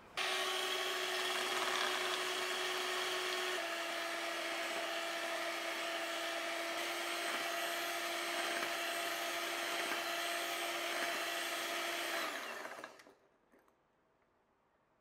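A small electric kitchen appliance motor runs steadily with a held hum. Its pitch drops a little about three and a half seconds in, and it winds down and stops about twelve seconds in.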